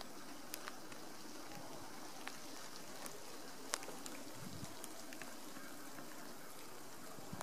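Quiet outdoor ambience: a faint steady hiss with scattered sharp ticks and a brief low rumble past the middle.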